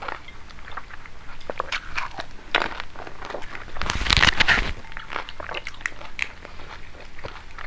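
Crisp pani puri shells crunching and crackling as they are bitten and chewed whole, filled with pani. The loudest, densest crunch comes about four seconds in.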